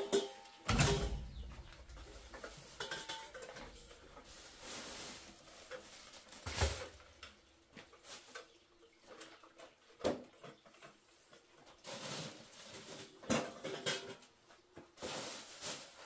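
Handling noises: a plastic bag of oranges rustling in short bursts, with a few sharp knocks and clacks as it is lifted, hooked on a hanging spring scale and set down.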